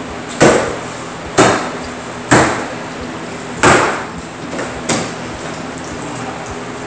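Cardboard carton around a boxed kitchen range being pulled apart: five sharp knocks roughly a second apart, the last one weaker.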